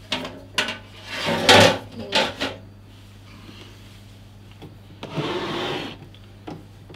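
Handling noise from the opened Tektronix 453A oscilloscope and its removed metal cover: several knocks and clunks in the first two and a half seconds, the loudest about a second and a half in, then a scraping slide about five seconds in as the aluminium-chassis scope is turned round on the table.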